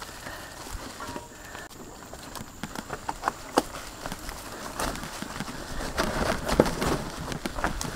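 Irregular clicks and knocks over a low rough rumble, with a few sharper knocks in the second half.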